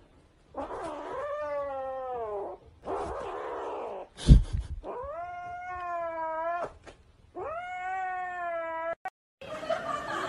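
Grey kitten giving four long, drawn-out yowling meows in a row, each a second or two long. A sharp thump comes about four seconds in, between the second and third yowls.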